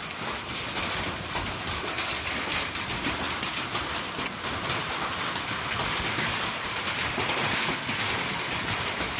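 Hailstones pelting down in a storm, a dense, unbroken clatter of many small impacts.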